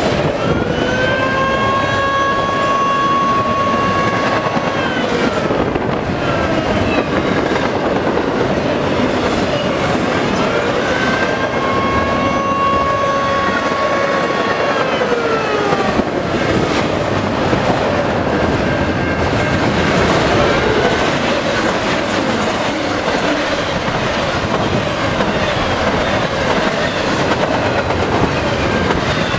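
Norfolk Southern double-stack intermodal freight train rolling past, with a steady rumble and clatter of wheels over the rail. Twice a high ringing tone with overtones sounds for about four seconds and bends down in pitch as it fades.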